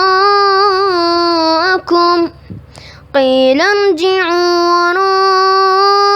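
A boy reciting the Quran in a melodic, chanted style, drawing out long ornamented notes. He stops for a breath a little past two seconds in, then resumes on a rising note.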